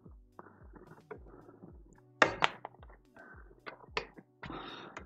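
Hand-assembly noises on a gaming chair: sharp clicks and knocks of an Allen key and small metal fittings, the loudest a pair about two seconds in, between short stretches of rustling plastic wrapping.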